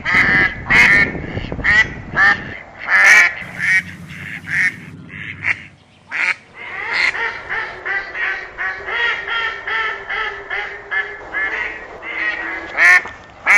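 A flock of geese honking: many short calls, often overlapping, with a quicker, denser run of honks from about seven to twelve seconds in.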